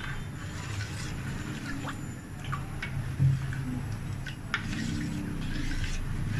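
Metal spoon stirring a cornstarch slurry in a metal bowl: liquid swishing, with short scrapes and taps of the spoon against the bowl and one louder knock about three seconds in. A steady low hum runs underneath.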